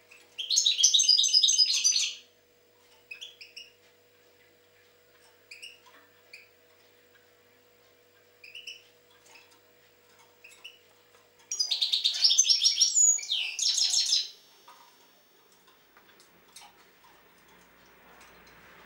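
European goldfinch singing: a rapid twittering phrase of about two seconds right at the start, a few short single notes, then a longer twittering phrase of about three seconds after the middle.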